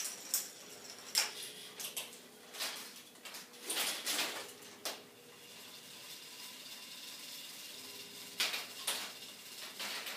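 Plastic clicking and clattering from a K'Nex fruit machine's mechanism: a series of irregular sharp clicks and knocks, with a quieter, steadier stretch in the middle.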